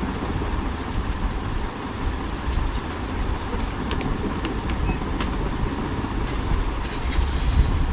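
Steady low rumble of shop background noise, with scattered clicks and rustles as packets are handled on the shelves and a few short high beeps near the end.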